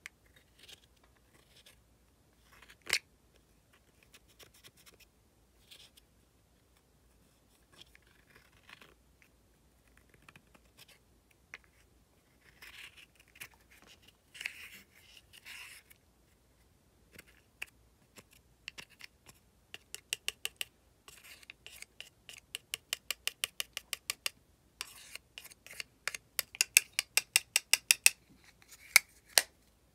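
Plastic spatula scraping and chipping crumbly pressed powder makeup out of its compact, in scattered scratches. Later come runs of rapid sharp taps, about four or five a second, loudest near the end, as the powder is dug and knocked loose.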